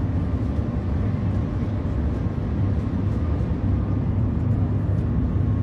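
Steady low rumble inside the cabin of the Shanghai maglev train running at about 360 km/h.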